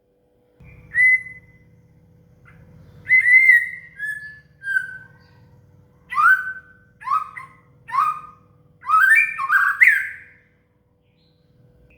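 Murai batu (white-rumped shama) singing: a string of clear whistled notes and short phrases, many sliding downward in pitch, with a quicker run of notes near the end.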